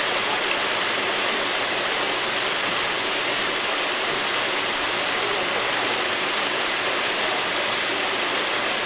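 Steady rushing noise of running, splashing water, even and unbroken throughout.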